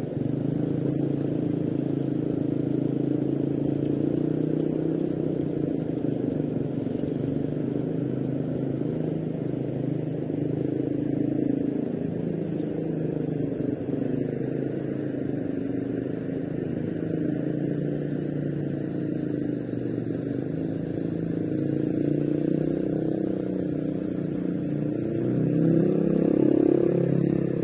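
An engine running steadily, its pitch rising slightly and getting louder near the end.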